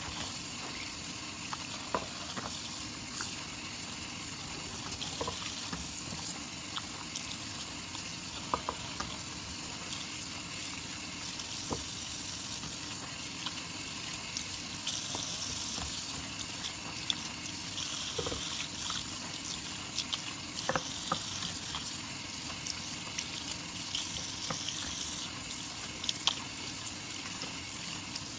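Wet soap lather and foam being worked and squeezed, a steady fizzy hiss with scattered small wet clicks and pops, swelling louder a few times.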